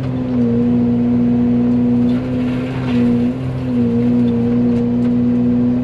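Fecon forestry mulcher head on a Yanmar excavator running at speed, a steady pitched drone over the diesel engine. Its pitch sags briefly several times as it bites into brush and then recovers, with a spell of chipping hiss about two to three seconds in.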